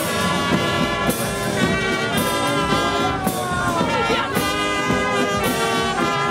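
Marching brass band playing: trumpets and larger brass horns carry the tune over a bass drum and cymbal beating about twice a second.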